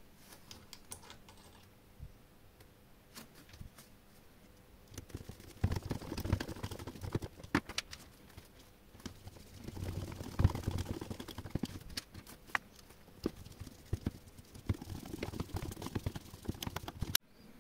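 Irregular light clicks and knocks of objects being handled, with denser, louder clusters about six, ten and fifteen seconds in. No motor is running.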